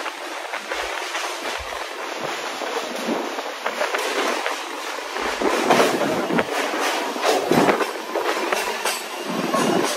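Gomateshwara Express passenger train running on the rails: a steady rushing noise with sharp wheel clicks, which grow louder and more frequent about halfway through.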